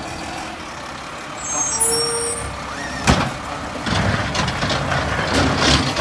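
A truck's engine running unevenly, with a sharp click about three seconds in.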